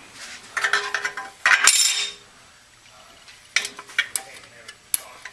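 Steel clutch plates of a 6R80 automatic transmission's low/reverse clutch pack clinking against each other and the aluminium case as they are handled and set into place. A cluster of sharp metal clinks with a brief ringing early on, then a few scattered clicks later.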